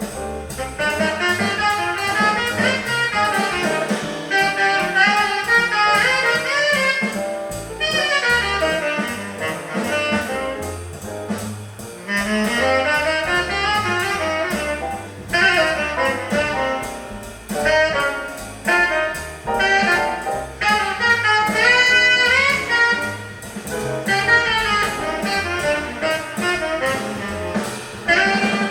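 Jazz with a saxophone playing the lead melody in phrases, played back through Raidho 1.6X loudspeakers from a record on an Acoustic Signature Tornado Neo turntable.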